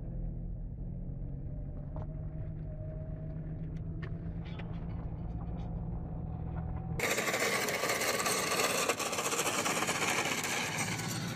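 A car's engine and road noise heard from inside, a steady low drone with a few faint clicks. About seven seconds in it cuts abruptly to a louder, even rushing of road and wind noise.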